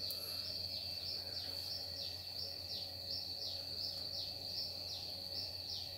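A cricket trilling steadily, a high continuous note with a short falling chirp repeating about twice a second. A faint low steady hum lies beneath.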